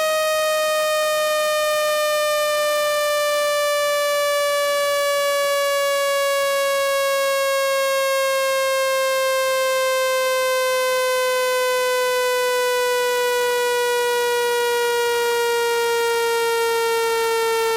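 Phone speaker-cleaning tone: a single loud electronic tone with many overtones, gliding slowly down in pitch. It is played at full volume to vibrate water and dust out of a phone's speaker.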